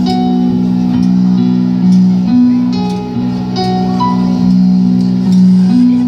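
Live band playing an instrumental passage: guitars and keyboard holding slow chords that change about every second, with light cymbal ticks over them.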